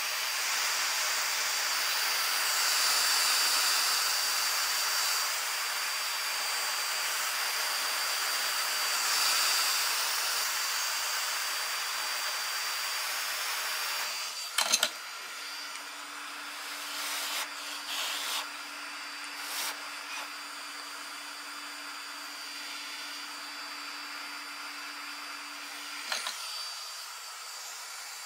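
Hot air rework gun blowing a steady hiss of air, with a faint high whistle, while heating MOSFETs on a circuit board. About halfway through a sharp click comes and the airflow drops. A steady hum then runs for about ten seconds with a few light clicks, and stops at another click.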